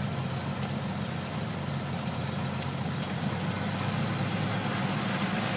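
Cessna 182's piston engine and propeller running at low taxi power, a steady drone heard from inside the cabin.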